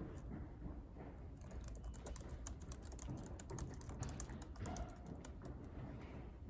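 Typing on a computer keyboard: a quick, uneven run of key clicks starting about one and a half seconds in and stopping near the end, over a steady low hum of room tone.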